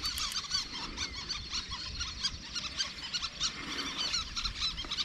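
Many small birds chirping in a busy, continuous chorus of short, high calls.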